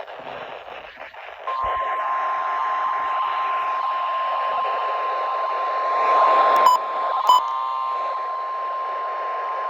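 NOAA Weather Radio warning alarm tone, a steady 1050 Hz single tone that starts about a second and a half in, over heavy radio static from weak reception. Two short blips break in about seven seconds in.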